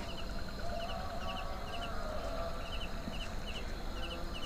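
Night insects chirping, short double chirps about twice a second over a steady high whine, with a low rumble underneath.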